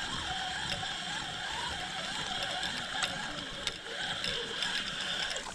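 Spinning reel being cranked steadily, its gears whirring as line is wound in on a hooked crucian carp. The reeling stops right at the end.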